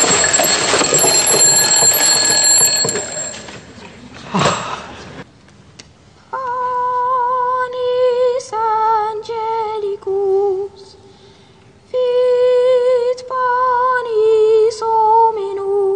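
A boy treble sings a solo hymn, long held notes with vibrato separated by short pauses. It is preceded by a loud rushing noise with a thin high whistle through it, which cuts off about three and a half seconds in, and a short swooping sound about a second later.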